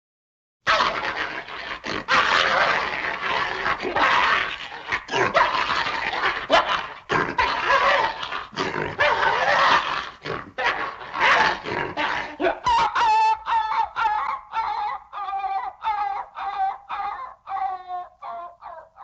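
Dog vocalising: about twelve seconds of dense, rough, noisy sounds, then a run of short pitched yelps about two a second, slowly falling in pitch and fading.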